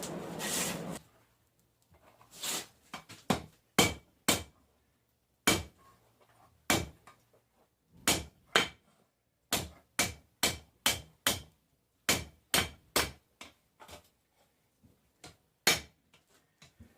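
Hand hammer striking hot 1080 high-carbon steel on an anvil, forging a knife blank: about two dozen ringing blows in irregular runs, some heavy, some light taps, with short pauses between runs. A steady rushing noise cuts off about a second in.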